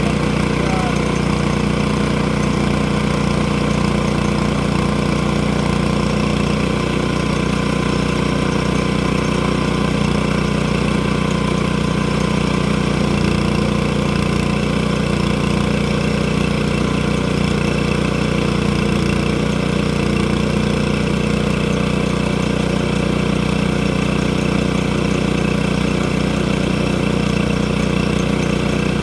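An engine running steadily at one even speed, with no change in pitch or level.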